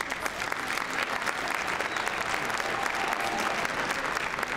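Large indoor crowd applauding. The clapping swells over the first second and then holds steady.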